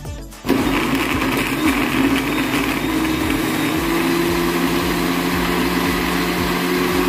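Countertop electric blender starting about half a second in and running steadily, puréeing strawberries, banana and almond milk into a smoothie. Its motor pitch rises a little three to four seconds in.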